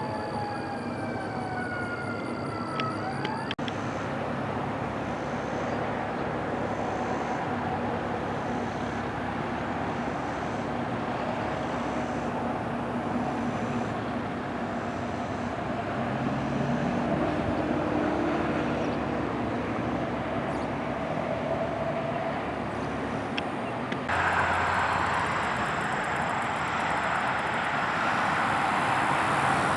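Steady road traffic noise from passing vehicles. In the first few seconds a tone falls in pitch and cuts off abruptly. About 24 seconds in, the noise suddenly grows louder.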